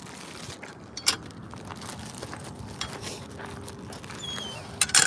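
Metal clanks from a chain-link gate latch: one sharp clank about a second in and two more close together near the end, over footsteps on gravel.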